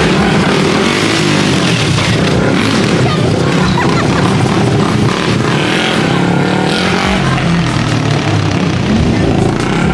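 Sport quad ATV engines revving loudly as riders pull wheelies, with people's voices mixed in.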